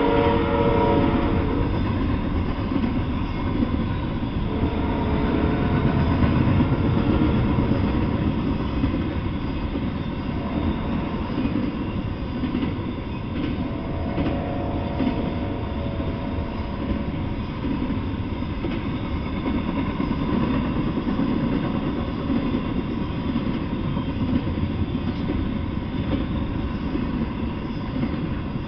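Double-stack intermodal freight train rolling past, a steady rumble and rattle of wheels and cars on the rails. Several times a held, chord-like tone rises over the rumble for a second or two, and the noise eases a little near the end as the last cars go by.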